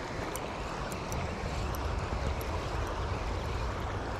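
Steady rush of fast-flowing creek water with a low rumble of wind on the microphone that swells in the middle, and faint light ticks as a spinning reel is cranked.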